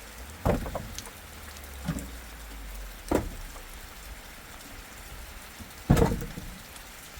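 Rain falling steadily, with four dull thuds, the loudest about six seconds in.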